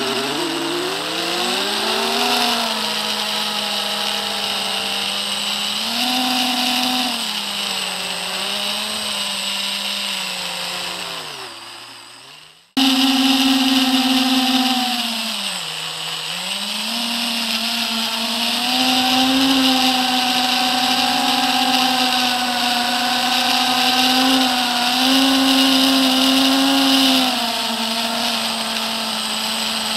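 FPV quadcopter's brushless motors and propellers whining up close from the onboard camera, the pitch rising and falling with the throttle. Partway through, the whine sinks and fades as the throttle drops, then cuts back in loud all at once.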